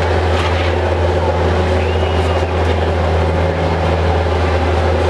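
Demolition derby cars' six-cylinder engines idling together, a steady low drone.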